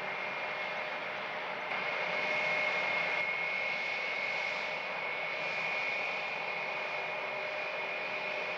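Jet airliner engines running at taxi power: a steady rushing noise with a high, even whine. The noise grows a little louder about two seconds in.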